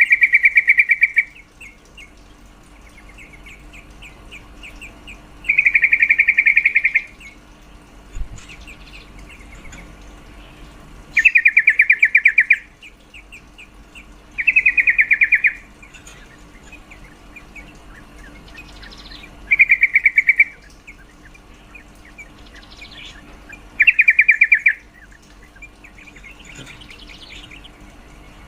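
Female yellow-vented bulbul (trucukan) calling: a rapid rattling chatter of notes about a second long, repeated six times a few seconds apart, with fainter chirps in between. It is the female's call to a male.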